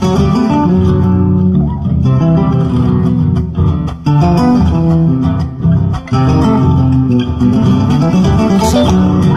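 Herle electric bass plucked fingerstyle, playing along with plucked acoustic guitars in an ensemble recording; a continuous run of notes and chords.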